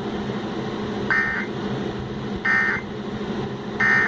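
Emergency Alert System end-of-message data bursts: three short, identical buzzy digital tone bursts, just over a second apart, over steady radio hiss. They mark the end of the severe thunderstorm warning broadcast.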